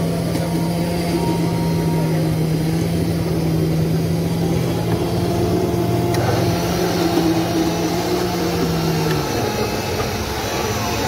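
Countertop electric blenders running as they blend tomatoes into chutney, a steady motor hum that shifts lower about nine seconds in.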